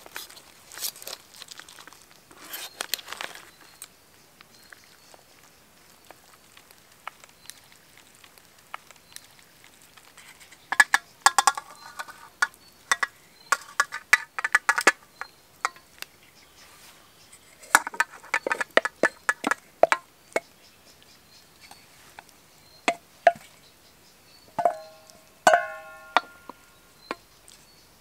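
Knife and fork cutting through crisp roast chicken skin, a crackling at the start, followed by bursts of utensils clinking and scraping against an enamel plate, some clinks ringing briefly, as roast potato pieces are spooned on.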